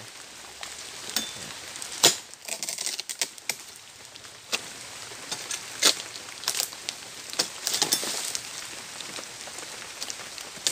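Rain pattering on oil palm foliage, broken by irregular sharp cracks and knocks as a long-pole harvesting sickle (egrek) works at the frond bases of an oil palm.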